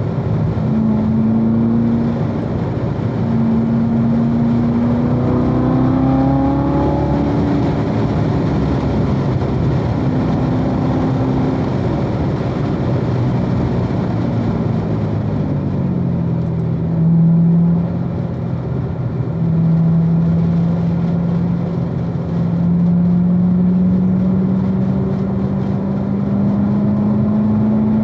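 2016 Corvette Z06's supercharged 6.2-litre V8 running under load. Its pitch climbs quickly about five to seven seconds in, falls around the middle, then rises slowly and steadily through a long pull.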